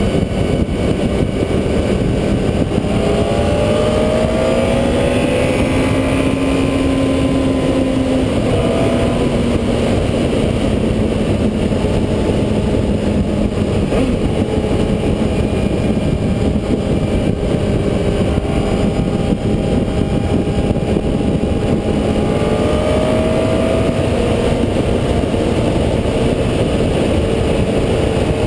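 Wind rush buffeting a bike-mounted camera at riding speed, over a Honda CBR954RR's inline-four engine pulling steadily. The engine's pitch climbs and eases gently a few seconds in, and again near the end.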